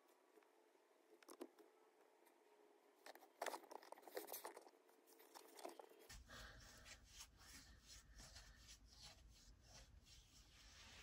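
Near silence: room tone with faint scattered clicks and crackles, a short cluster of them about three and a half seconds in.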